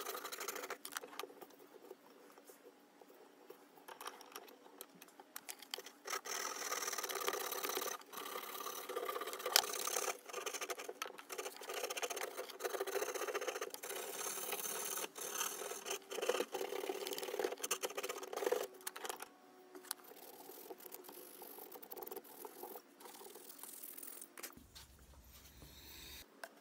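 A poplar lure blank clamped in a vise being hand-sanded with a strip of sandpaper: quick back-and-forth scratchy strokes, heaviest through the middle and lighter near the end.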